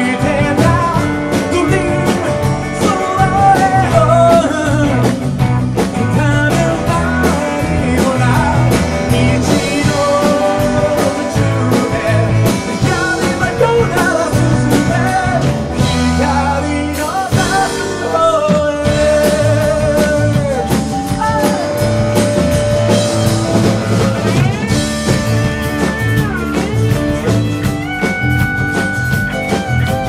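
Live rock band playing a song: a male lead singer sings in Japanese over acoustic and electric guitars, bass, keyboard and drums.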